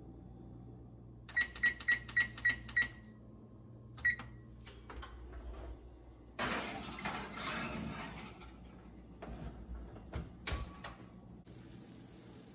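Six quick beeps from a kitchen appliance's keypad as buttons are pressed, then a single beep. A few seconds of rushing noise and a few clicks follow.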